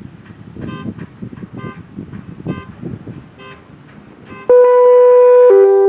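An irregular, rough noise with short pitched blips about once a second. About four and a half seconds in, a loud, steady electronic tone starts and steps down to a lower note a second later, like the start of a synthesized tone sequence.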